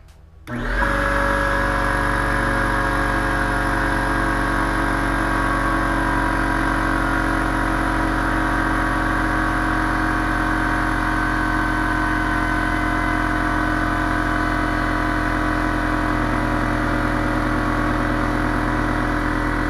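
Ridgid 6-gallon pancake air compressor's oil-free pump switching on about half a second in and running steadily, a loud even motor hum, as it pumps up the tank.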